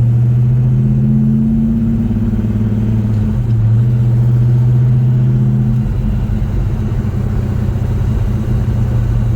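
1970 Pontiac GTO's freshly rebuilt 400 V8 running steadily while the car is driven gently during break-in, its note rising and falling a little a few times.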